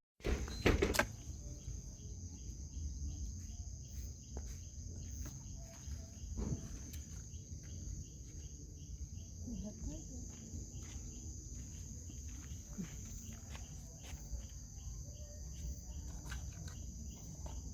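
Crickets and other insects chirping: a steady high trill with a second insect pulsing regularly a little over twice a second. A single sharp knock comes just under a second in.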